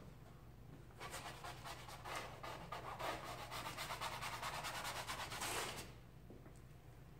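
Paintbrush scrubbing quickly back and forth on a canvas: a rapid, scratchy rubbing that starts about a second in and stops near the end.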